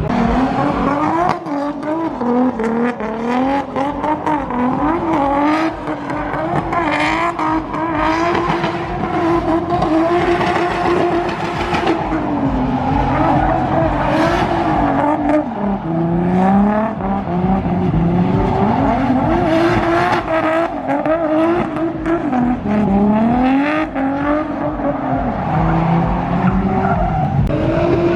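Drift car's engine revving up and down again and again with the throttle through a run, with tyre squeal as it slides.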